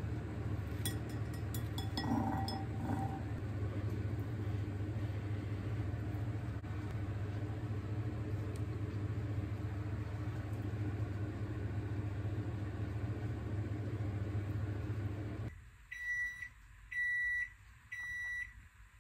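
An electric appliance hums steadily, with a few light clicks near the start. The hum cuts off about three-quarters of the way through, and three short high-pitched beeps follow about a second apart, like an appliance signalling that it has finished.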